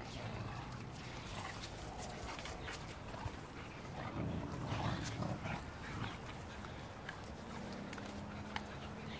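Cane Corso dogs growling as they play tug-of-war over a rope toy, a low continuous rumble that swells about four to five seconds in.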